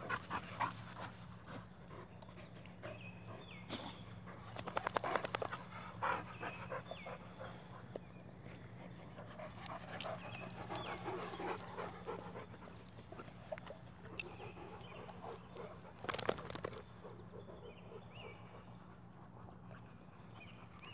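Dogs panting hard while running and playing on grass, with scattered rustles and thumps of their movement, louder about five seconds in and again around sixteen seconds in.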